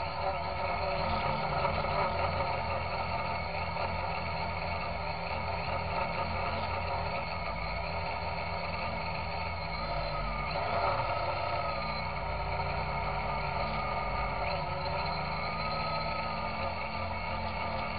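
Electrohub Spider X quadcopter's brushless motors and propellers, heard from the onboard camera, running with a steady multi-tone whine whose pitch bends up and down twice partway through. The cheap motors are noisy, which the builder takes for bad bearings out of the box.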